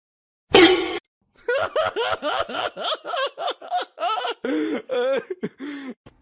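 A short, loud burst of sound about half a second in, then a person laughing in a long run of short, repeated bursts.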